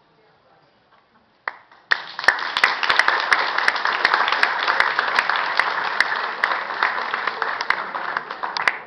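Theatre audience applauding: a dense burst of clapping starts about two seconds in, holds steady, and stops near the end.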